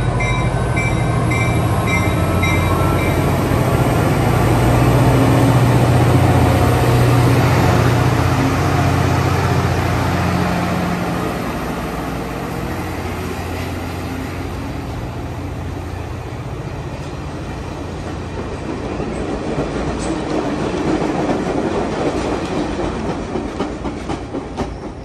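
Caltrain F40PH diesel-electric locomotive passing close by with a steady low engine drone, followed by its bilevel passenger cars rolling past with wheel clatter on the rails. The engine drone fades after about ten seconds as the cars go by, and the noise swells once more before dropping away as the train recedes.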